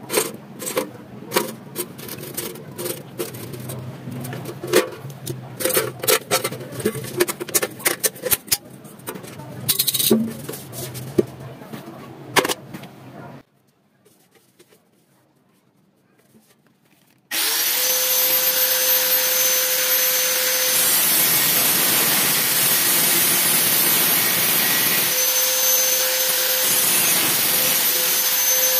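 Irregular clicks and knocks of parts being handled for about the first half, then, after a few seconds of near silence, an electric power tool starts abruptly and runs steadily with a constant whine.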